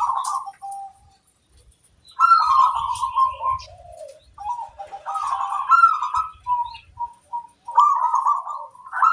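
Zebra dove (perkutut) cooing: four bouts of its rolling, trilled call with short pauses between them, and faint high chirps over the top.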